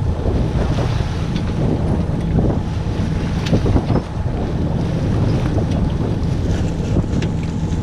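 Steady wind buffeting on the microphone over the rush of water along the hull of a small sailboat under way.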